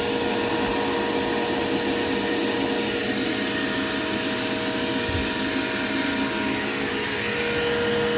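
Dirt Devil Quick Power vacuum cleaner running steadily: a constant motor whine over the hiss of rushing air, with a brief low bump about five seconds in.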